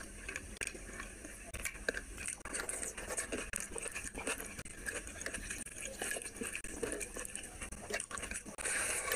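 Close-miked chewing and wet mouth sounds of eating rice and curry by hand, with irregular clicks and the squish of fingers mixing rice on a plate. A brief louder hiss comes near the end.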